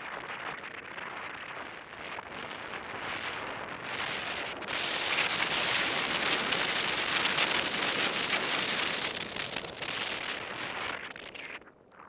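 Hiss of skis or a board sliding fast over snow, mixed with wind rushing over the microphone. It builds to its loudest in the middle, where the run is fastest, and eases off near the end as the rider slows.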